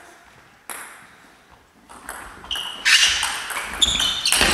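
Table tennis ball struck back and forth in a rally, its sharp ping off the bats and the table repeating every half second or so, in a large sports hall. A single tap comes about a second in before the quick exchange starts around halfway.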